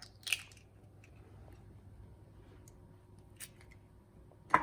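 A few sharp clicks and taps of a bowl and kitchen utensils being handled, the loudest near the end, with faint room noise between.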